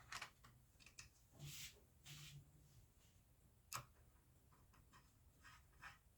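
Near silence broken by a few faint clicks and two brief soft scrapes, with one sharper click just before the four-second mark: small screws and a screwdriver being handled against a plastic sewing-machine casing.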